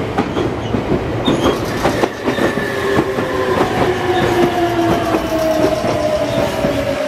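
Meitetsu electric train running past a platform, its wheels clicking over rail joints, with a motor whine that falls steadily in pitch.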